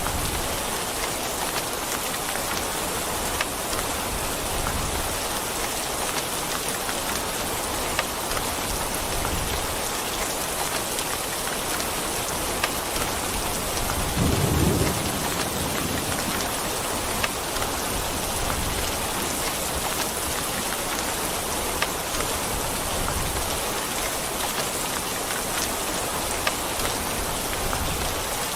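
Steady rain falling, with scattered sharp drop impacts. About halfway through, a brief low rumble of thunder.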